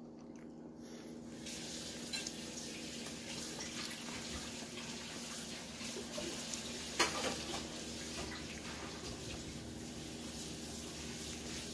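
A steady rushing noise over a low hum begins about a second in, with a short knock about seven seconds in.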